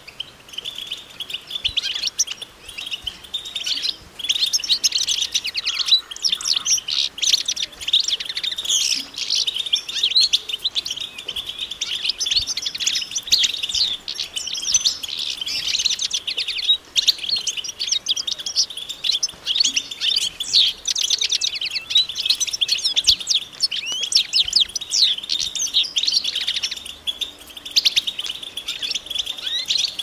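A flock of European goldfinches twittering together: dense, overlapping quick chirps and trills with no real pause. These are the excited group and mating-readiness calls that keepers play to stir a silent male goldfinch into song.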